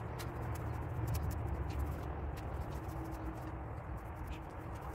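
Paintbrush worked in a small pot of paint, with scattered light clicks and taps from the bristles and handle against the pot, over a steady low hum.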